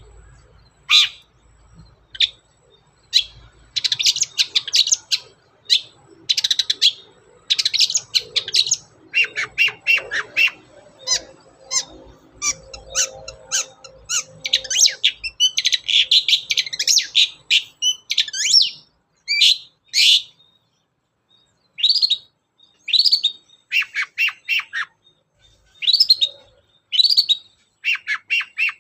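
Long-tailed shrike in vigorous song: sharp, harsh calls, with a long, dense run of rapid chattering notes through the middle, then single calls about a second apart near the end.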